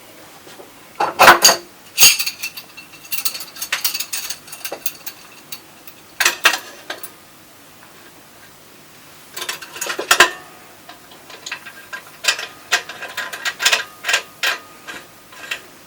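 Metal clinks, knocks and rapid ticking as the casing clamp of a Top-Flo C-Series centrifugal pump is closed and tightened by hand. The clicks come in scattered groups with quiet gaps between them.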